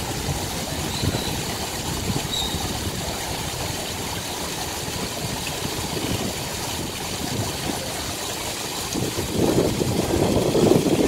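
Water trickling and splashing steadily into a garden fish pond over small rock spillways, louder near the end.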